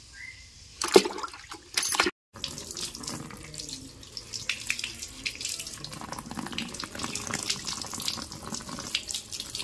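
A leaf is swished in a bucket of water, with a couple of sharp splashes in the first two seconds. After a brief cut, a steady stream of water from a tap pours over a hand and the leaf, splashing onto stone.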